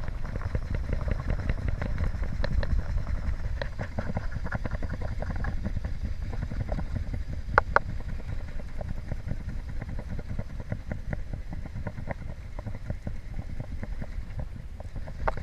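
Fast river water rushing around a wading angler, with wind rumbling on the microphone and scattered light clicks and knocks, including a sharper double knock about halfway through.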